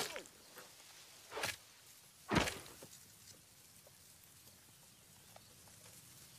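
Two sharp bangs about a second apart, the second the louder with a short tail, over a low steady background.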